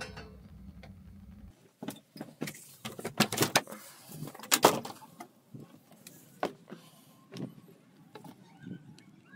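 A camper's entry door being unlatched, opened and stepped through: a run of clicks, knocks and rattles, loudest between about three and five seconds in, then a few scattered lighter knocks. A steady low hum in the first second and a half stops abruptly.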